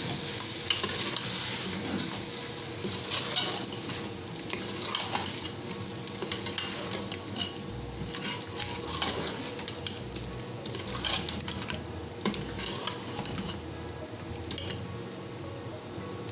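Chicken and potato pieces sizzling in hot oil and masala in an aluminium pressure cooker while a metal spoon stirs them, scraping and clinking irregularly against the pot's bottom and sides. The stirring is bhunna, frying the meat and potatoes in the spice paste.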